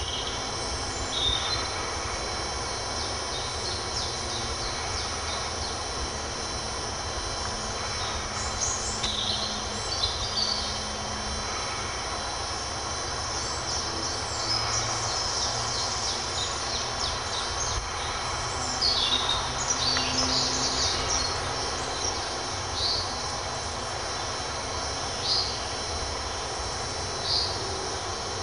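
Woodland birds singing and calling, with short high chirps scattered through and several bunched together near the middle, over a steady background hiss and low rumble.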